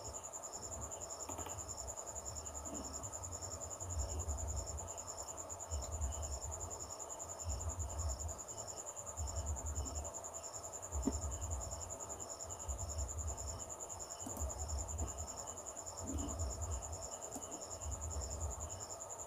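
Crickets chirping: a steady high trill with a quicker pulsing chirp just beneath it. Under them a low rumble swells every second or two.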